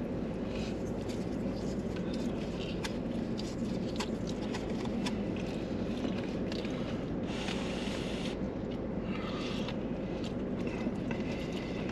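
Steady low hum of a car's engine idling and its fan blowing, heard inside the cabin, with small scattered clicks of forks against cardboard takeout boxes and a brief hiss about seven seconds in.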